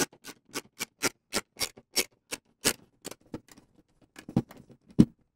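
Screwdriver backing out the screws that hold Corsair SP120 RGB case fans to a steel radiator bracket: a steady run of clicks, about four a second, which grows sparse and uneven, with one sharper knock near the end.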